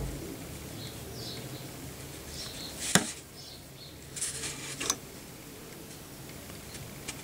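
Low steady hum with small handling noises: a sharp click about three seconds in, then brief rustling and another click a second or two later.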